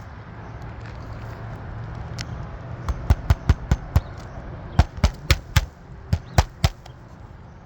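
Hammer striking the roof in two quick runs of sharp knocks, about a dozen in all, over a steady low hum.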